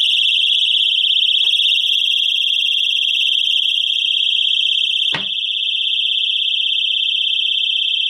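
Handheld pull-pin alarm sounding a loud, steady, high-pitched shriek. About five seconds in, a wooden box lid knocks shut over it and the tone goes on slightly muffled and quieter.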